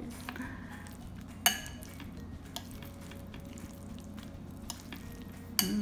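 A spoon stirring and mashing chunky guacamole in a glass bowl: soft wet squishing and scraping with light ticks of the spoon on the glass, and two sharper knocks, about a second and a half in and near the end.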